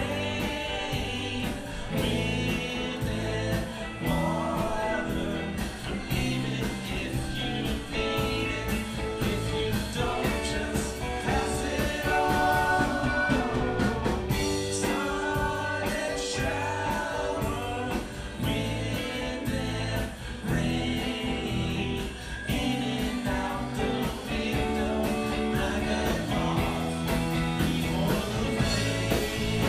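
Live rock band playing a song: lead and harmony vocals over electric guitars, bass and a drum kit keeping a steady beat, heard from out in the crowd.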